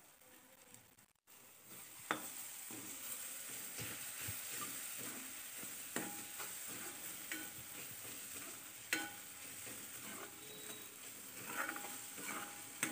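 Onion-tomato masala with freshly added ginger-garlic paste sizzling in a metal kadhai as a metal ladle stirs it. The sizzle starts about two seconds in, with a few sharp clinks of the ladle against the pan.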